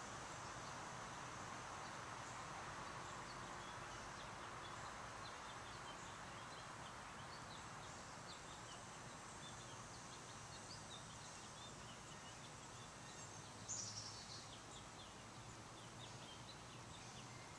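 Faint outdoor ambience: a steady hiss with many short, high chirps scattered through it, and one brief louder high sound about fourteen seconds in.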